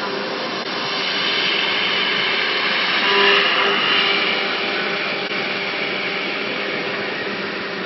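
5-axis CNC machine spindle running, its slim cutter milling a metal compressor impeller: a steady machining hiss with a spindle hum and faint whine, loudest about three seconds in.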